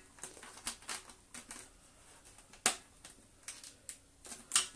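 Scattered light plastic clicks and taps as the motor cable is pressed into the channel of a Dyson DC07's plastic spine, with a sharper click about two and a half seconds in and another near the end.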